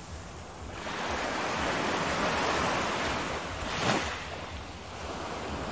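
Rushing, splashing water with wind buffeting the microphone, swelling and fading, and a brief louder burst about four seconds in.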